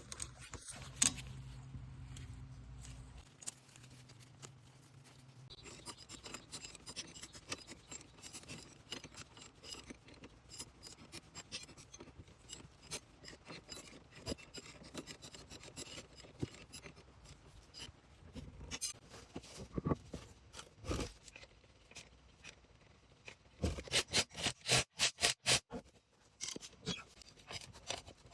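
Faint, scattered metallic clicks and scrapes of tools and brake parts being handled as a rear brake caliper is put back together, with a quick run of about ten sharp clicks, roughly four a second, a few seconds before the end.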